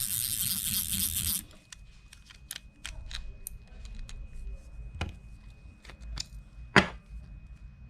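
Small metal clicks and light knocks as a rusted, seized fishing reel is worked on and taken apart by hand, with one louder click near the end. It opens with about a second and a half of a steady hissing noise.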